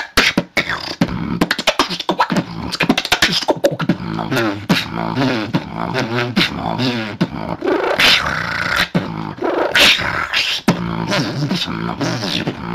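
Beatboxing heard over a voice-chat connection: a fast run of sharp clicks and hits, then wavering hummed bass tones broken by short hissing snares.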